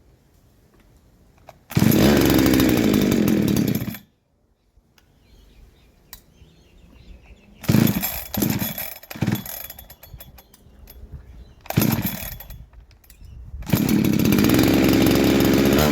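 Two-stroke engine of a Husqvarna 372XP clone chainsaw catching and running for about two seconds, then dying suddenly. It gives a few short sputters, then catches and runs again near the end. It is running on a cheap new aftermarket carburetor, which the owner judges no good because it won't keep the saw running.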